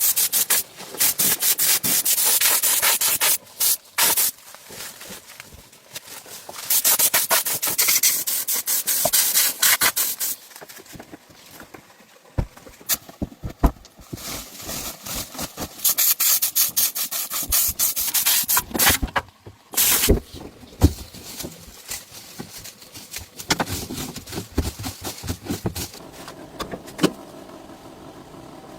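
Fast back-and-forth scrubbing strokes of an abrasive on a hard surface, coming in long bursts with quieter scraping and a few sharp knocks in between.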